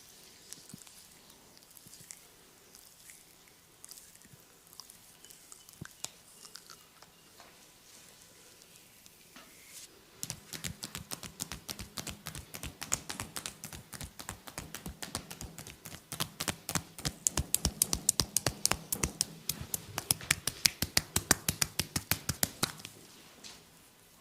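Massage strokes: faint rubbing and occasional soft taps, then from about ten seconds in a fast, even run of hand strikes on the body, several a second, getting louder before stopping near the end.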